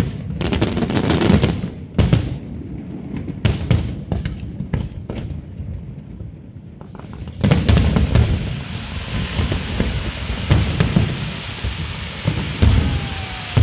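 Fireworks display: a rapid run of sharp bangs and crackles from bursting aerial shells, thinning out mid-way. From about seven and a half seconds a steady hiss sets in under further bangs, as ground fountains shower sparks.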